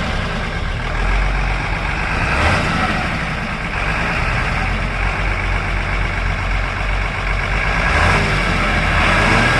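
Heavy diesel engine running steadily, its note shifting about two and a half seconds in and again near the end.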